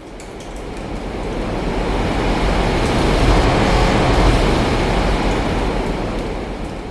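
A long roll of distant thunder: a deep rumble that swells to a peak about halfway through and slowly dies away, over light drizzle.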